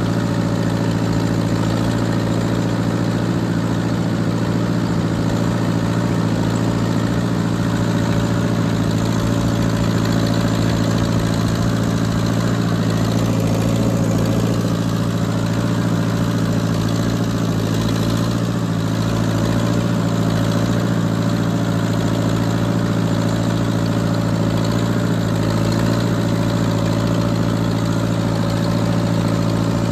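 Half-track tractor engine running at a steady speed as the tractor drives, heard close up from the tractor itself; the pitch holds constant throughout.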